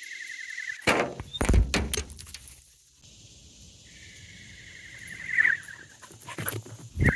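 Whistling flying disc in flight: a wavering whistle near 2 kHz that fades about a second in, comes back about four seconds in, and starts a third time near the end. After each whistle there are several loud thumps and knocks.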